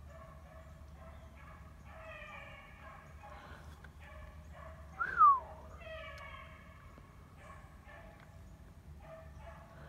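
Rabbit-hunting dogs giving faint, repeated drawn-out cries, each dropping slightly in pitch, as they work a rabbit's trail. About five seconds in, one dog lets out a single loud, sharp cry that falls steeply in pitch.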